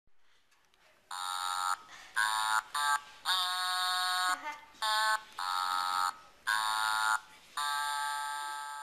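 Electronic keyboard intro: a string of about eight held synth notes, each at a steady pitch, with short breaks between them and no drums.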